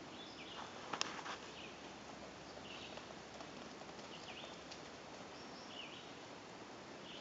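A bird repeating a short call about every second and a half over a faint background hiss, with a couple of sharp clicks about a second in.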